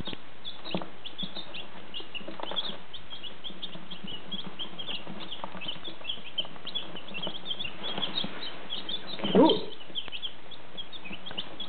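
A brood of day-old chicks peeping constantly, many short high chirps overlapping. About nine seconds in there is one brief, louder and lower sound.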